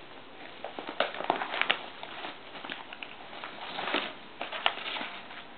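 Padded paper mailer and cardboard packaging rustling and crinkling as a book is pulled out of it, in a run of sharp crackles starting about a second in.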